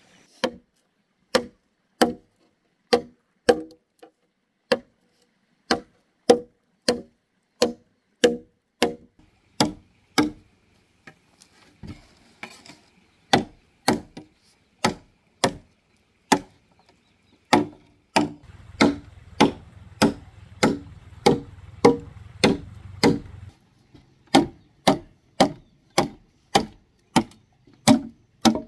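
Heavy cleaver chopping into a hollow green bamboo pole: a steady series of sharp, ringing strokes, a little more than one a second, with a short pause about ten seconds in.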